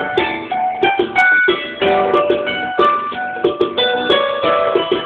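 Music: the instrumental break of a romantic pop song, with an electric keyboard playing the melody over a steady beat.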